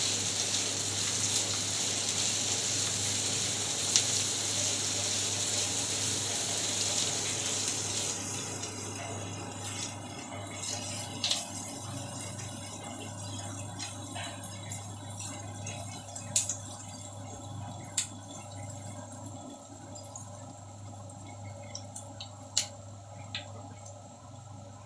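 Sliced onions with whole cardamom, cinnamon and bay leaves frying in hot oil in a pan. A strong sizzle for about eight seconds, then quieter, with scattered crackles and pops.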